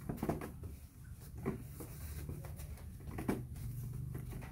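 Knocks and thumps of a monkey's hands and feet on a plastic stool as it climbs about on it, three louder knocks spread over a few seconds, with a steady low hum underneath.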